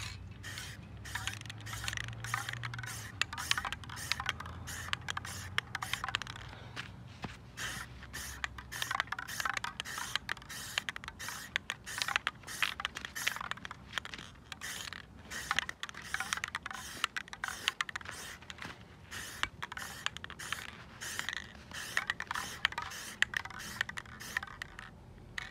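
Aerosol can of matte high-heat spray paint hissing in many short, irregular bursts as another coat is sprayed onto a dirt bike exhaust pipe.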